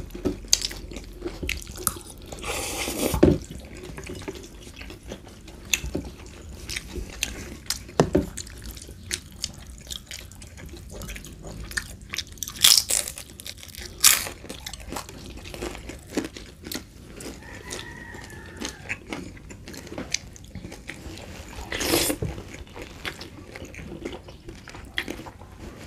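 Wet chewing and slurping of spaghetti and bites of fried spring roll, with many short clicks and crunches and a few louder sharp sounds.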